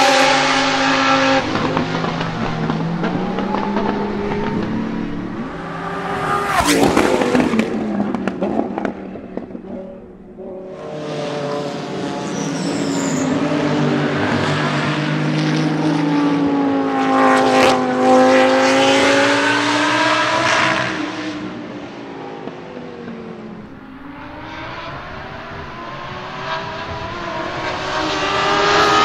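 Lamborghini Huracán Super Trofeo race cars' 5.2-litre naturally aspirated V10 engines on track, the engine note climbing and falling through the gears as they drive past, with close pass-bys about seven and eighteen seconds in.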